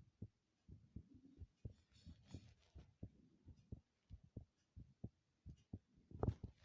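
Fast human heartbeat: low, quick thumps coming in lub-dub pairs, louder near the end, with a brief scratchy rustle about two seconds in.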